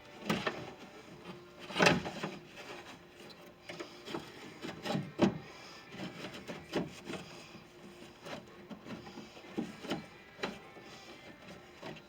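A door latch assembly knocking and scraping against the inside of a pickup's steel door shell as it is worked out by hand: a string of irregular clunks and rattles, the loudest about two seconds in.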